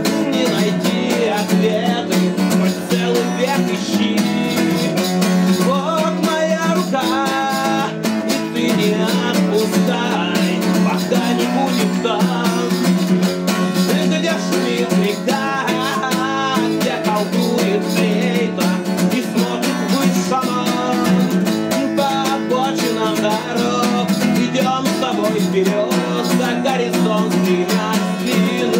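A man singing while strumming an acoustic guitar, a solo acoustic song performed live.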